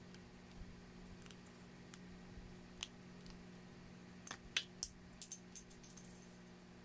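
Plastic Lego bricks clicking as they are pressed and snapped together by hand. There is one sharp click near the middle, then a quick run of about seven clicks over a second and a half.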